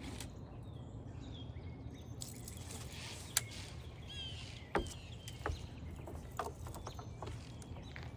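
Birds chirping over a steady low rumble, with a few sharp clicks, the loudest about three and a half and five seconds in.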